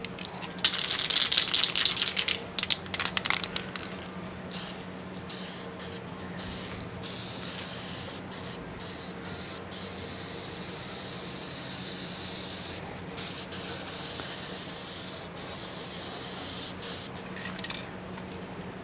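Aerosol spray paint can spraying onto a steel frame: a loud hiss about a second in, then a softer, steadier hiss broken by short pauses through the middle.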